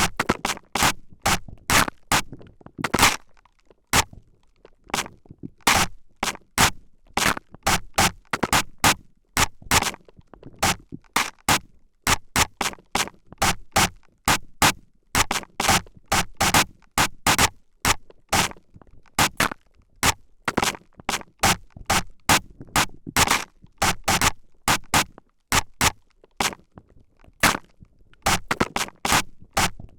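Spray bottle spritzed close to the microphone in quick short bursts, irregularly about two a second, each a brief hiss.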